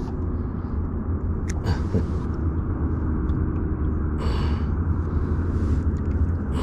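Steady low rumble of wind buffeting the microphone on an open boat, with a few light knocks and a short rustle about four seconds in.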